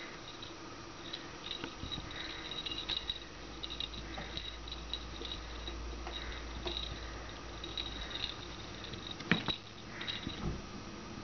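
A kitten batting and biting a hanging feather toy: faint rustling and scattered small taps, with one sharper knock about nine seconds in.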